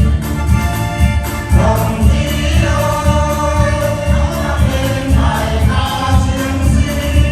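Choir-style group singing over music with a steady bass beat; the voices come in about one and a half seconds in.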